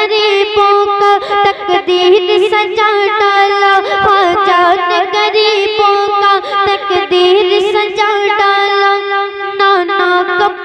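A boy singing a devotional manqabat through a microphone and PA, drawing out long, wavering, ornamented notes with no clear words.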